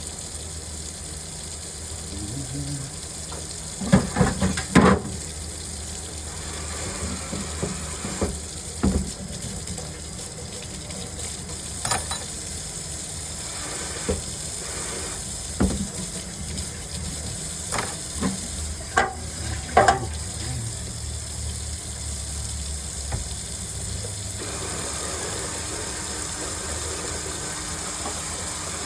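Steady hiss of kitchen work, with scattered sharp knocks and clanks of kitchenware, loudest a few seconds in and again near the twenty-second mark.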